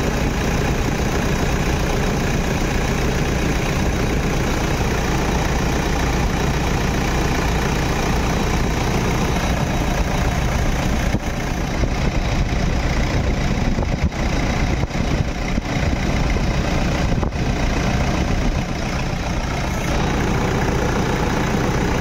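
Toyota Innova engine idling steadily with the bonnet open, while its newly replaced power steering pump is filled with fluid.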